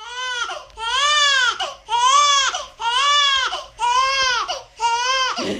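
Young infant crying in a run of six rhythmic wails, about one a second, each rising and then falling in pitch.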